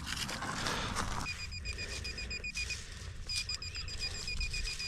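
Metal detector beeping: a rapid, evenly pulsed high tone of about eight beeps a second, in two runs with a short break between them, signalling metal in the ground. A rustling scrape comes in the first second.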